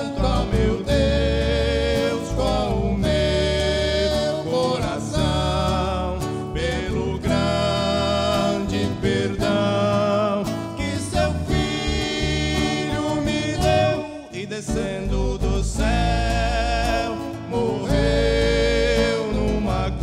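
Two male voices singing a gospel song together, accompanied by an acoustic guitar.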